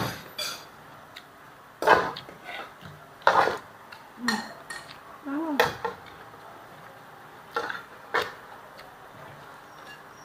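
Metal tongs clanking against a steel wok while stir-frying vegetables, about seven sharp, irregularly spaced clanks, the loudest around two and three and a half seconds in.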